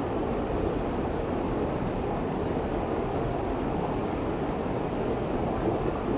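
Steady rushing of a river running fast over rocks and shallow rapids, a constant deep wash of water.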